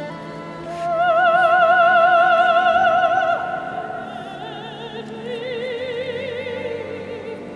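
Men's choir singing in a large stone cathedral. A high voice holds a long note with wide vibrato, loudest from about a second in until about three seconds, over lower held parts. The sound then drops and a lower held note with vibrato carries on.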